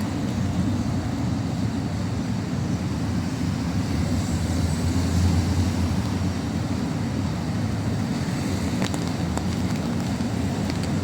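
City street ambience: steady low traffic rumble that swells for a couple of seconds about four seconds in as a vehicle passes close.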